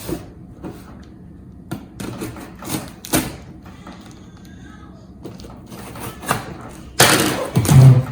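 A cardboard shipping box being opened by hand: scattered short scrapes, rustles and knocks of cardboard and packing, then a louder burst of tearing and rustling about seven seconds in that lasts about a second.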